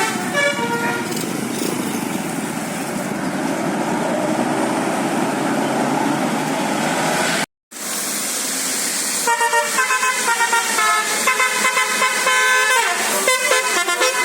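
A bus's telolet musical air horn playing a tune of short, quickly changing notes, heard briefly at the start and again through the last third after a brief cut. In between comes the noise of a passing vehicle.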